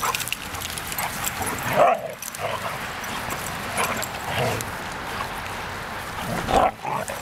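Siberian huskies play-fighting and vocalizing, with short calls throughout. The loudest calls come about two seconds in and again near the end.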